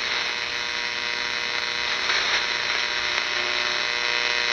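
Shortwave receiver audio from a WWII BC-454B tuned across a noisy 3–6 MHz band on AM: a steady hiss of band noise and atmospheric static with a hum and several steady whistling tones.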